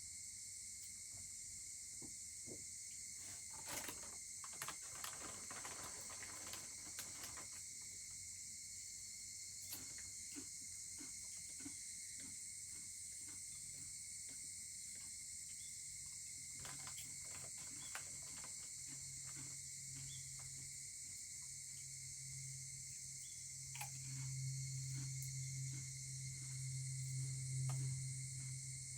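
Steady chirring of an insect chorus, with scattered crackles and pops from a wood campfire. A low steady hum comes in about halfway through and grows to the loudest sound near the end.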